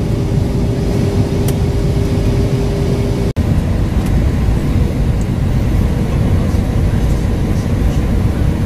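Airliner cabin noise in flight: a steady, loud rumble of jet engines and airflow heard from a window seat. A low steady hum runs under it until a sudden split-second dropout about a third of the way in; after that the hum is gone and only the rumble remains.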